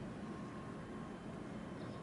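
Steady low rumble of distant harbour background noise, with a faint constant hum.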